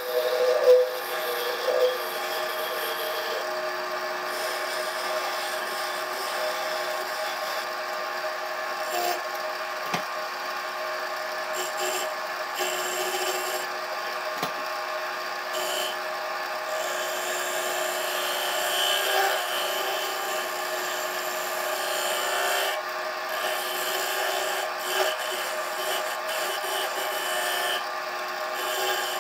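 Wood lathe running with a steady hum while something is held and rubbed against the spinning spalted cherry goblet, a continuous rubbing on wood.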